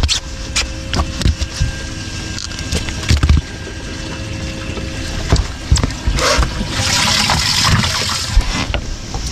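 Irregular knocks and thumps as a freshly caught crappie is handled on a boat's carpeted deck, then a couple of seconds of rushing, splashing water from the boat's livewell.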